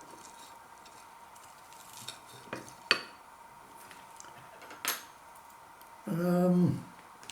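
Tableware being handled: a few sharp clinks of cutlery and dishes as the dip pots are set out, then a short pitched sound about six seconds in that drops in pitch as it ends.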